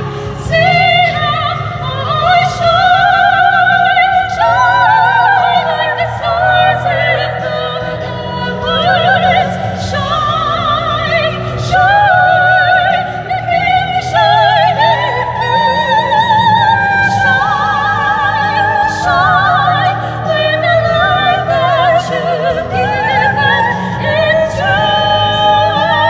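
Two women singing a duet in classical, operatic style, their voices moving in harmony with strong vibrato over a steady instrumental accompaniment.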